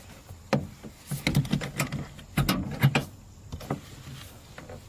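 Britax harness-to-booster car seat's top tether strap and metal hook knocking and clicking as the hook is fastened to the tether anchor on the rear shelf: a series of sharp knocks and clicks, bunched about a second in and again near the middle.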